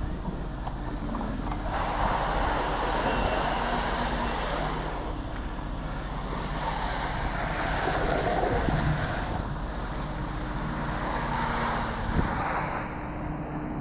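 A motor vehicle's engine runs steadily, with a rushing noise that swells and fades several times. There is one short knock near the end.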